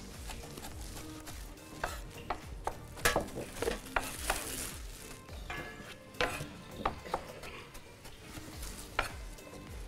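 Cookware clatter: utensils knock and scrape against a pan in a series of sharp, uneven clicks as food is stirred, with soft background music underneath.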